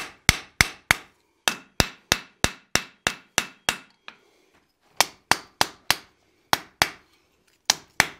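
Hand hammer striking hot steel bar on the edge of an anvil to square a 90-degree bend. The blows are sharp and ringing, about three a second, in short runs with a pause of about a second near the middle.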